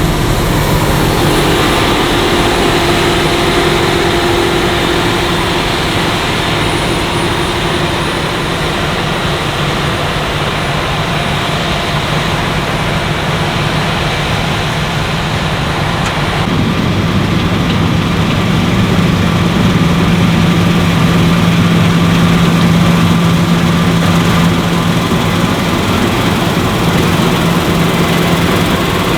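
Claas Lexion 770TT combine harvester running steadily at work. The sound changes abruptly a little past halfway, with a stronger low hum after.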